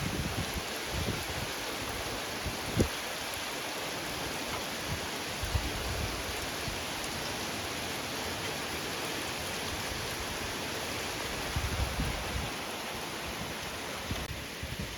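Steady rain falling with an even hiss during a thunderstorm, with a few brief low thumps scattered through it.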